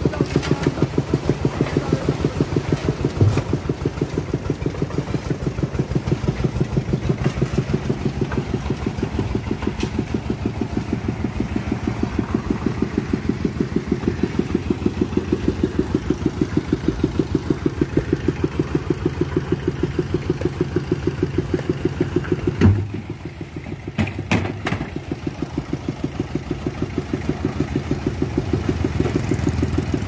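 Single-cylinder diesel engine of a one-bag concrete mixer running steadily with an even chugging of about five beats a second. About three-quarters of the way through there is a sharp knock, after which the engine sound dips for a moment and comes back.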